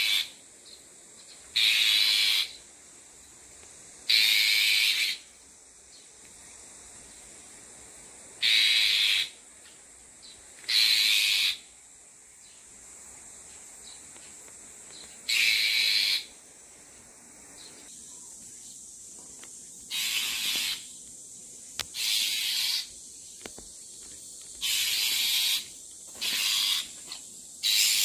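Bull-headed shrike parent giving harsh, noisy rasping calls in defence of its nest of chicks. Each rasp lasts under a second, and they repeat every two to four seconds, about eleven times.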